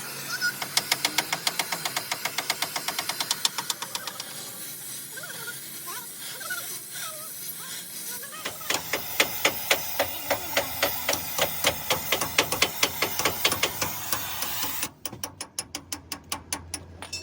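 Rapid, evenly paced hammer blows on metal, about five to six a second, in two runs with a pause of a few seconds between them.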